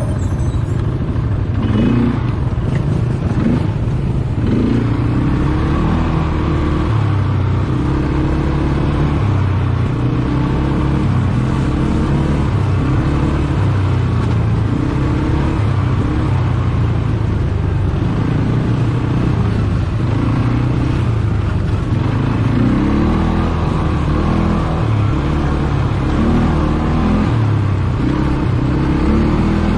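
ATV engine running while being ridden, its pitch rising and falling again and again as the throttle is opened and eased, over a steady low rumble.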